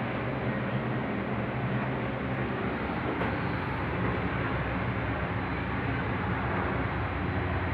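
Steady machinery noise with a low hum: a ship crane's Linde BPV 100 hydraulic pump unit running.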